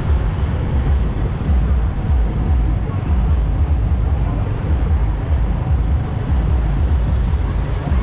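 Road traffic noise: motorbikes and cars moving along the street, with a steady heavy low rumble.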